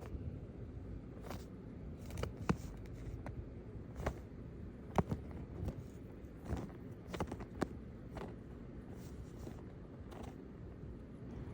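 Irregular light clicks and taps, about a dozen spread unevenly, over a low steady hiss.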